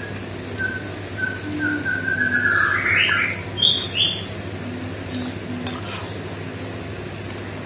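A bird calling: a run of short, repeated high notes that grow longer and louder, then two brief higher notes about a second later.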